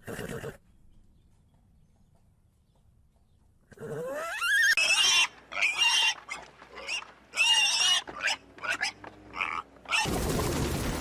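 An animal calling over and over after a few seconds of near silence: a rising call, then a run of short pitched cries.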